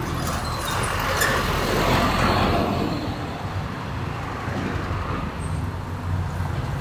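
Street traffic: a vehicle drives past, loudest about two seconds in, over a steady low rumble of passing cars.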